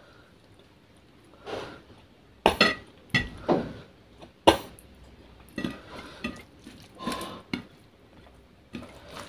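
Ceramic bowl and plate clinking and knocking several times, with short ringing, between softer sounds of a hand working curry gravy into rice on the plate.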